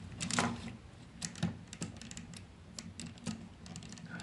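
Hard plastic parts of a Takara Masterpiece MP-36 Megatron transformable figure clicking irregularly as fingers prise leg pieces apart and fold a panel inward, over a faint low hum.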